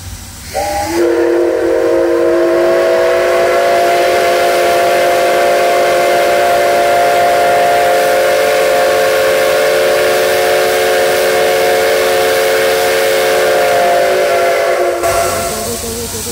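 Steam locomotive C57 180 sounding its steam whistle in one long blast of about fourteen seconds. It is a steady chord of several tones over a hiss of steam, starting about half a second in and cutting off near the end.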